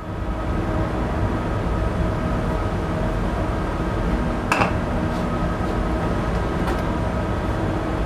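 Steady drone of shipboard machinery with several constant hum tones. There is one sharp click about halfway through, as lockout hardware is handled, and a fainter click a couple of seconds later.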